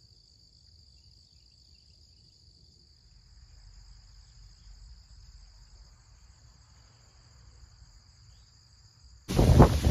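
Faint, steady chorus of crickets chirping in two high, even trills over a low rumble. Just before the end it cuts abruptly to loud wind gusting on the microphone.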